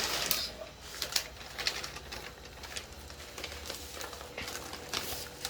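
Handling noises: scattered light clicks and rustles of plastic being moved about, over a faint steady hum.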